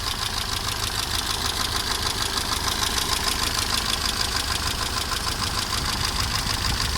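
Mercedes-Benz 190E (W201) petrol engine idling steadily and evenly, without shaking. The owner hears a clatter only under load at speed and is unsure whether it comes from the camshaft, the valves or the timing chain.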